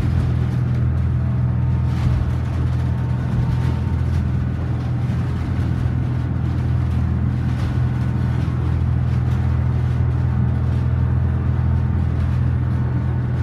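Diesel engines of a Beneteau Swift Trawler 34 running steadily at cruising speed, a constant low drone heard from inside the wheelhouse, with the rush of water along the hull.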